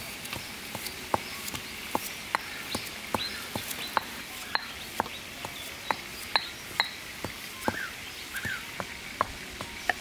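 Knife slicing a cucumber held in the hand, a crisp snap with each cut, about two to three cuts a second.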